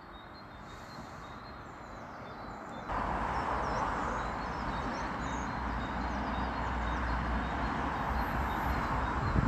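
Birds chirp faintly over quiet outdoor ambience. About three seconds in, a steady motor-vehicle engine rumble starts abruptly and runs on evenly.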